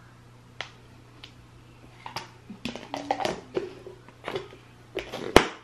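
A spoon scraping and knocking in a plastic food container as salsa is scooped out, then the container's plastic lid pressed on and snapping shut with one sharp click near the end.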